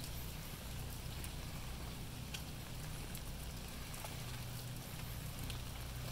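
Storm wind and rain: a steady low rumble of wind with a hiss of rain and scattered clicks of falling drops.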